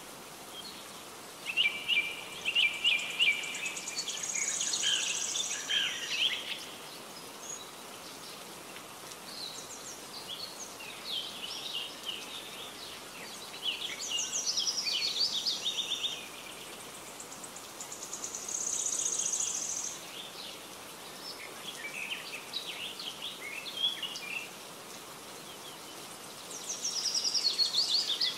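Songbirds singing: bursts of chirps and trills every few seconds over a steady background hiss.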